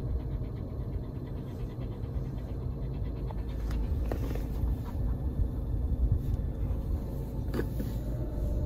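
A small dog panting over the steady low rumble of a car cabin on the move.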